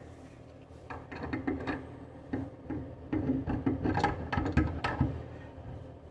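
A wrench clicking, knocking and scraping against a plumbing fitting as a nut is worked onto its thread, in irregular short clicks.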